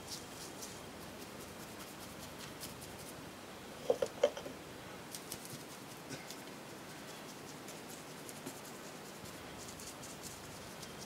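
Small paintbrush dabbing and scratching wood preserver into soft, mouldered deadwood: faint scattered scratches and ticks, with two short knocks about four seconds in.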